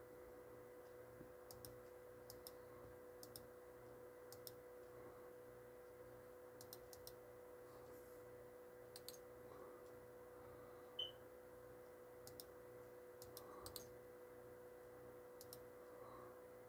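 Near silence with scattered soft clicks from working a laptop's controls, over a faint steady hum. One short, high blip sounds about eleven seconds in.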